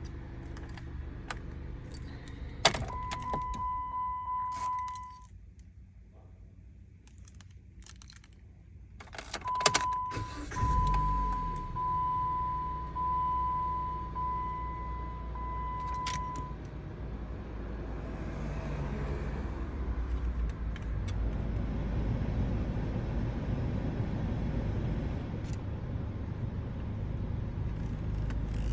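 Car keys jangling and clicking, with a Jeep Compass's electronic warning chime sounding twice: briefly about three seconds in, then in pulses for several seconds. From about ten seconds in a steady low hum comes up and runs on under the clicks.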